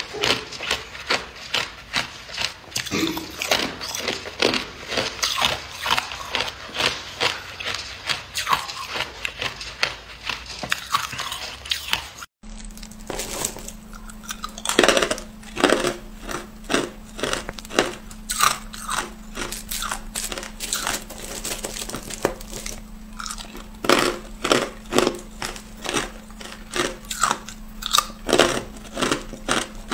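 Hard clear ice being bitten and chewed close to the microphone: rapid sharp crunching and cracking, several crunches a second. About twelve seconds in the sound cuts out for an instant, and after that a steady low hum runs under the crunching.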